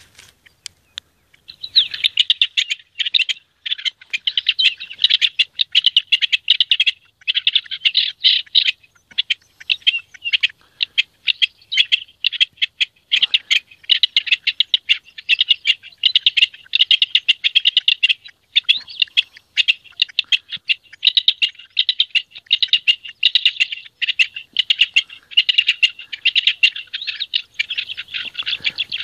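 Rock partridge singing its breeding-season courtship song: a long, unbroken run of rapid, repeated scratchy notes that starts about two seconds in.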